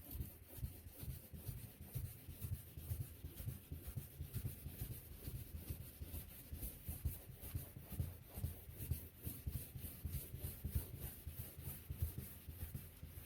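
Rubber sanding block with 800-grit wet paper rubbed back and forth over a wet clear-coated car panel in quick, even strokes. This is wet sanding to level fish eyes and orange peel in the clear coat.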